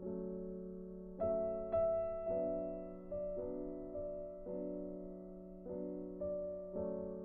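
Soft background piano music: gentle chords struck about once a second, each fading before the next.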